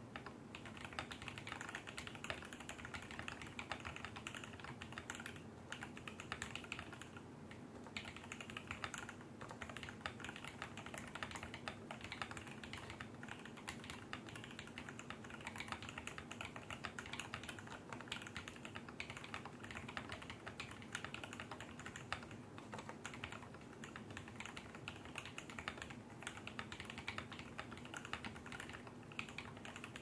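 Continuous fast typing on a custom mechanical keyboard with lubed and filmed Tealios v1 linear switches, a brass plate, an acrylic tray-mount case and PBT keycaps: a dense, unbroken run of keystrokes with no pauses. A faint steady hum lies underneath.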